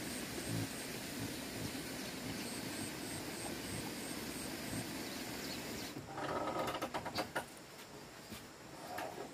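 Steady outdoor countryside background hiss with a faint, high insect chirp repeating about three times a second. About six seconds in it changes to a quieter indoor background with a few sharp clicks and short, pitched sounds that cannot be identified.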